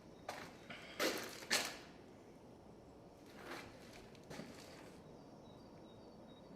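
A few sharp knocks. The two loudest come about a second in, half a second apart, with softer ones before them and around the middle.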